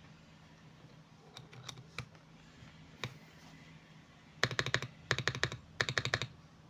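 Lubed Akko mechanical keyboard switches being pressed: a few single keystrokes, then, past the middle, three quick bursts of rapid keystrokes.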